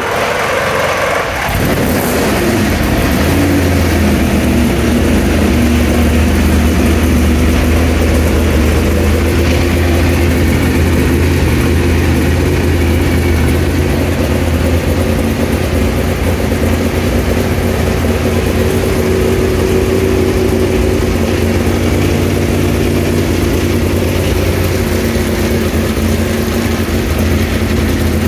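Duquesne D08 LMP3 race car's Nissan V8 just fired up, settling within the first couple of seconds into a loud, steady idle.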